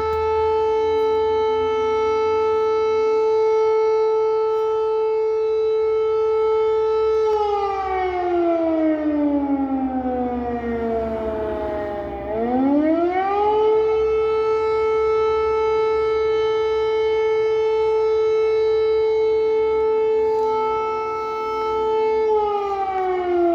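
Civil defence air raid siren sounding loudly: a long steady tone that starts to fall in pitch about seven seconds in, swoops back up a little after halfway, holds steady again, and begins to fall once more near the end.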